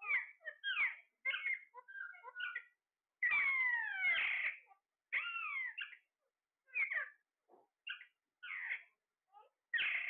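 Caged Alexandrine and ring-necked parakeets calling: a run of short, harsh calls, many sliding down in pitch, with one longer call lasting about a second and a half a few seconds in.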